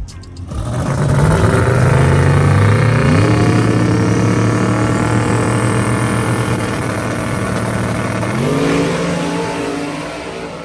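No-prep drag car launching and accelerating hard away down the strip. The engine note steps up in pitch twice and fades as the car pulls away.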